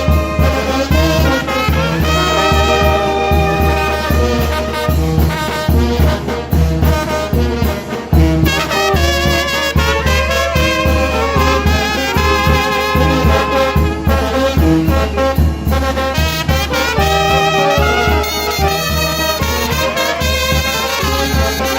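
Mexican village brass band (banda de viento) playing: trumpets and trombones carry the melody and harmony over a steady low bass beat.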